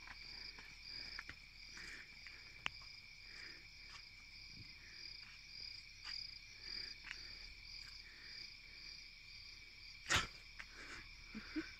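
Night insect chorus of crickets: a steady high trill with a second, higher one pulsing, scattered faint clicks, and one sharp knock about ten seconds in.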